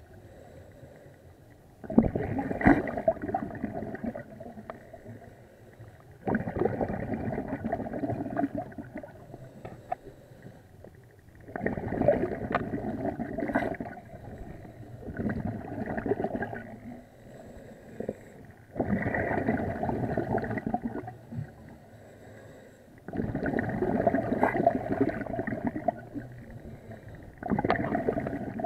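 Scuba regulator exhalations heard underwater: a rumbling, gurgling rush of bubbles lasting about two seconds, repeating seven times at roughly four- to five-second intervals.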